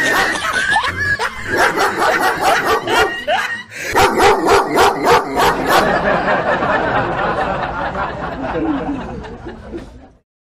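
Dog barking in quick, repeated barks: a barking recording played from a hidden Bluetooth speaker as a prank to startle passers-by. The barking fades in the second half and cuts off just before the end.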